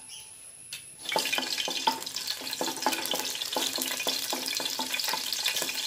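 Whole spices (cardamom pods, cinnamon and black peppercorns) sizzling and crackling in hot oil in a kadai, starting about a second in. A wooden spoon stirs them, knocking and scraping against the pan.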